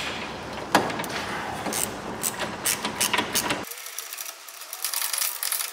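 A ratcheting ring spanner clicking in quick runs as it tightens the nuts on a car's track control arm mounting bolts.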